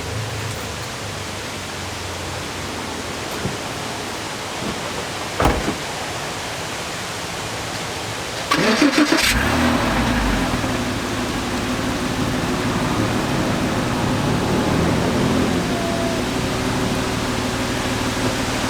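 A Porsche Boxster 987's 2.7-litre flat-six engine is started: a short burst of cranking about halfway through, then it catches and settles into a steady idle. Before the start there is a steady hiss and a single knock.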